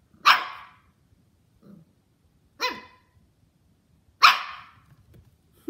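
A puppy gives three sharp single barks a couple of seconds apart, with a faint low sound between the first two. It is barking at an unfamiliar new toy it is wary of.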